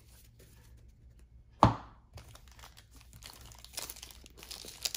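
A single sharp knock about one and a half seconds in, then a trading-card pack wrapper being torn open and crinkled, the rustling growing busier toward the end.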